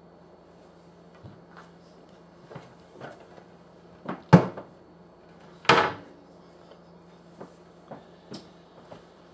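Kitchen cupboard doors and things on the counter being handled: scattered light knocks, a sharp bang about four seconds in, and a louder clatter about a second and a half later, over a steady low hum.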